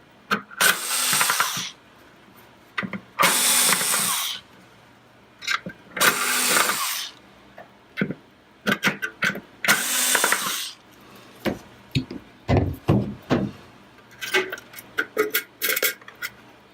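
Power screwdriver backing out the screws at the ends of an LTE panel's casing: four whirring runs of about a second each, with clicks and knocks of handling in between and a few low thumps near the end.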